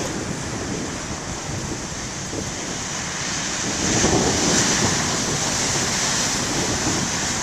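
Heavy ocean surf crashing and washing on the shore, with wind buffeting the microphone; the surf swells louder about four seconds in as a wave breaks.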